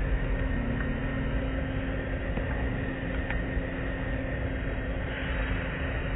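Automatic car wash heard from inside the car: a steady rush of water spray and blue cloth brushes sweeping over the body, over a constant low machine hum. The hiss grows brighter about five seconds in.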